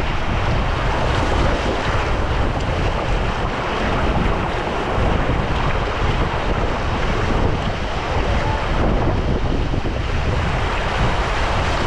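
Surf washing onto the beach, with wind buffeting the microphone in a steady low rumble.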